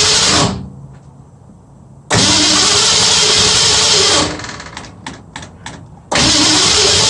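A car's starter cranking the engine in three bursts with short pauses between, the engine not catching. It cranks without firing because the ignition hot wire from the key is disconnected.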